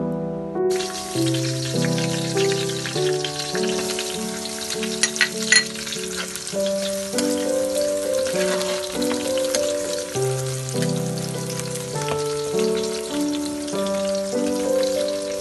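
Hot oil sizzling as sliced garlic fries in a pan, under background music with a gentle, steady melody. The sizzling comes in about a second in, and a few sharp clicks sound near the middle.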